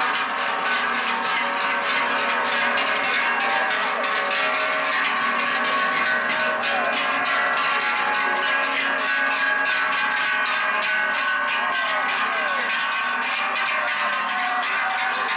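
Large cowbells on a herd of cows clanging continuously as the cows walk past, many bells ringing at once in an irregular jangle.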